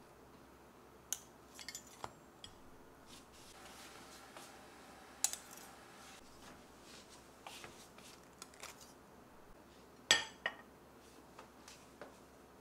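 Metal tongs clinking and tapping on a ceramic plate as slices of French toast are laid on it: scattered light clinks, with one louder clink about ten seconds in.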